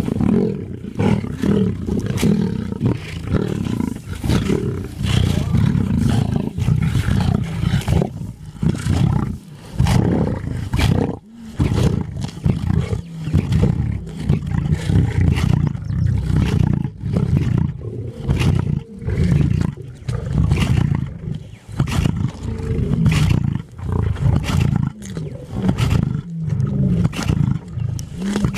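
Male lions growling as they feed on a kill: a deep, continuous growl broken by short pauses.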